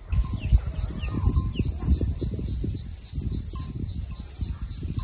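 Chickens or chicks cheeping a few times in the first two seconds, over a steady, evenly pulsing high buzz and irregular low thumps.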